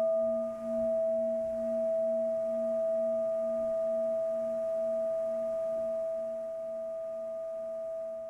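Tibetan singing bowl struck once and left to ring: a clear tone over a lower hum that wavers about twice a second, slowly fading.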